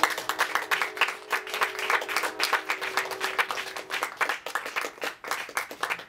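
Small audience applauding at the end of a poem, the separate claps easy to pick out and thinning toward the end.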